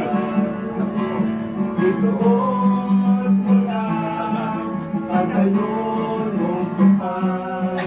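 Music: a song with guitar accompaniment and singing.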